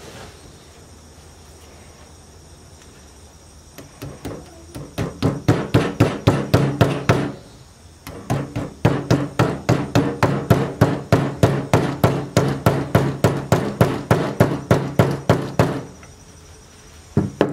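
Small hammer with a rusty iron head tapping a tack-style suspender button through the waistband of work pants laid on a wooden tabletop. It strikes quickly, about four blows a second, in a short run starting about four seconds in, then a brief pause and a longer run. A couple more blows come near the end.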